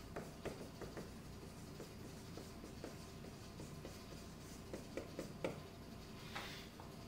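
Dry-erase marker writing on a whiteboard: faint, scattered squeaks and taps of the felt tip as a word is written out, letter by letter.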